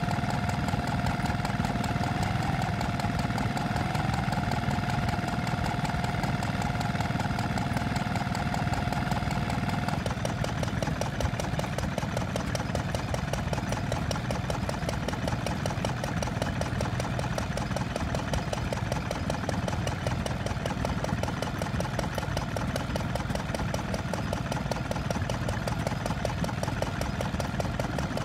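Small vintage stationary engines running steadily on bottled propane gas. The first runs with a steady high tone over its beat. About ten seconds in, that gives way to another small engine's fast, even firing beat.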